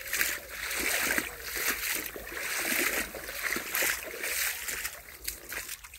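Feet wading through a shallow, gravel-bedded spring stream, with a splash and slosh at each step, about one a second.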